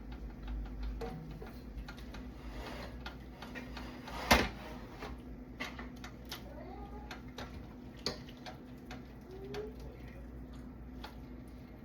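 Scattered light clicks and taps, with one sharp, much louder knock a little after four seconds in, over a steady low hum.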